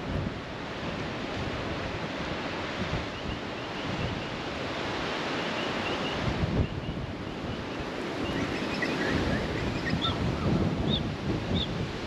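Gusting wind buffeting the microphone, with the low rumble growing stronger in the second half. A few faint, short high chirps come through over it.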